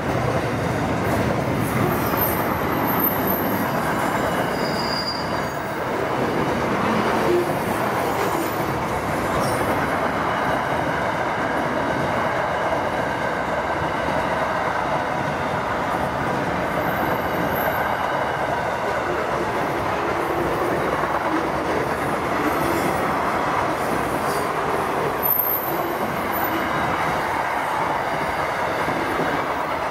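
SCT Logistics freight train passing over a level crossing: wagon wheels rumbling and clattering on the rails in a steady stream, with a few brief high squeals.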